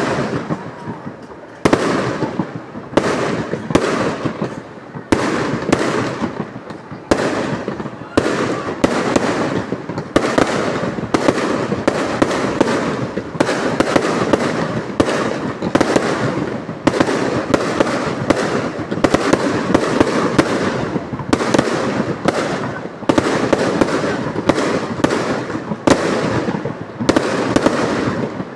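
Fireworks going off in a rapid, dense barrage: many sharp bangs a second with crackling between them, pausing only briefly a few times.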